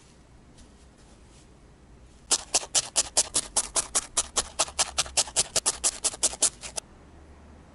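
A felting needle stabbing rapidly into a ball of core wool, a quick even run of sharp crunchy pokes at about five or six a second that starts about two seconds in and stops about a second before the end.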